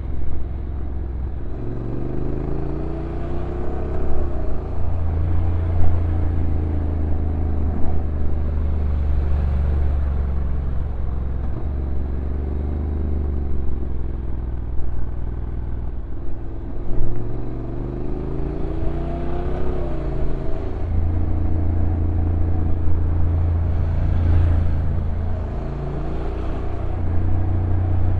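Honda NC750X's parallel-twin engine running on a downhill ride, its note rising and then dropping away twice as the dual-clutch transmission changes gear.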